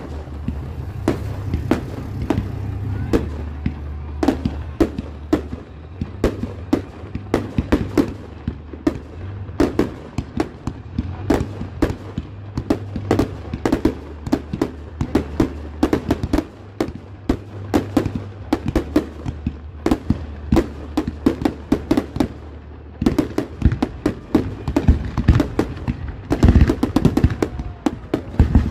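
Fireworks display: a rapid, continuous string of bangs, pops and crackles from bursting aerial shells, growing denser and louder in the last few seconds.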